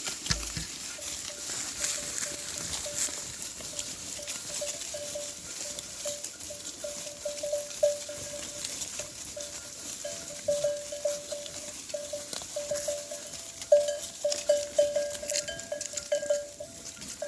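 A flock of Merino sheep on the move, their bells clinking and clanking irregularly over the shuffle of many hooves. The bells grow busier and louder from about ten seconds in.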